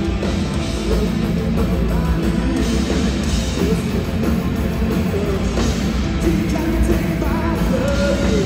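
Punk rock band playing live: loud, steady full-band music with guitar and singing.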